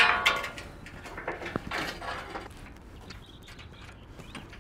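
Sheet-metal door-frame sections clanging together as they are set down and fitted. One loud ringing clang at the start is followed by lighter knocks and clatter for a couple of seconds, then it goes quieter.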